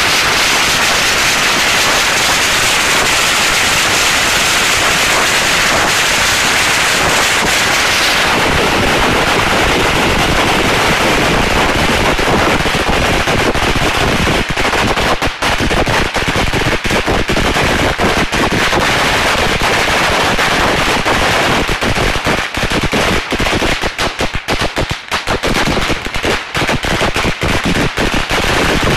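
A long string of firecrackers going off: rapid bangs merge into an unbroken crackle for the first several seconds, then come as separate bangs with short gaps, thinning toward the end.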